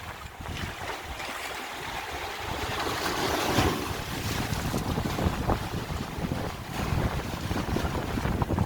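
Wind blowing hard into the microphone with a low buffeting rumble, and sea waves washing. The noise swells to its loudest about three and a half seconds in.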